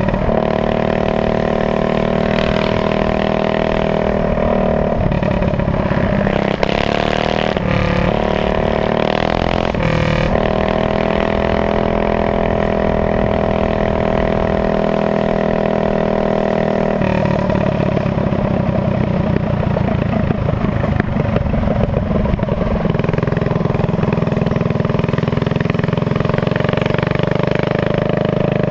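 Minibike's GX160 single-cylinder four-stroke engine running hard at speed, its pitch shifting several times, with a rougher, uneven stretch a few seconds in.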